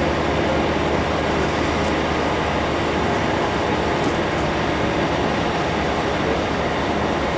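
Mount Washington Cog Railway locomotive running as it moves slowly along the rack track with its passenger coach, a steady drone.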